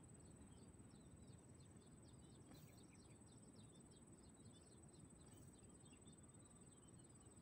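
Near silence: faint outdoor ambience with many quick, high chirps repeating throughout, over a thin steady high whine.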